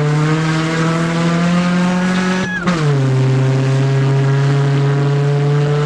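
Honda CR-V's four-cylinder engine pulling hard, heard from inside the cabin. The revs climb steadily, then break briefly about two and a half seconds in and drop sharply as the manual gearbox is shifted up, and the engine pulls on in the next gear over a steady rush of tyre and trail noise.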